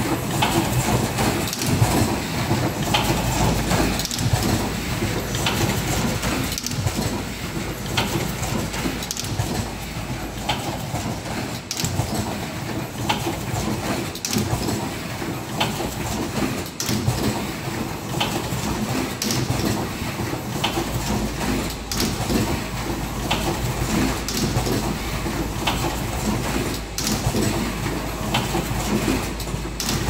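Automatic cable-feeding, cutting, stripping and Schuko plug insert crimping machine running: a steady mechanical clatter over a low hum, with sharp clicks and knocks from its working heads recurring about every second.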